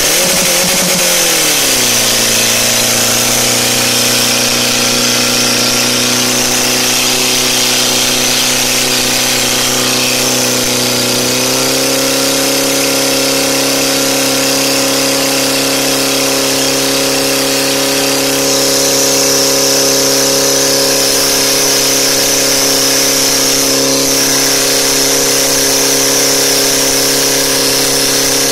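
Portable fire pump's engine running hard while it pumps water out through the hoses. It revs up at the start, drops in pitch about a second in, steps up a little about eleven seconds in, and then holds steady.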